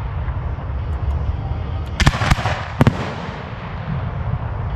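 Aerial fireworks bursting: a quick cluster of sharp booms about two seconds in, four within less than a second, over steady low background noise.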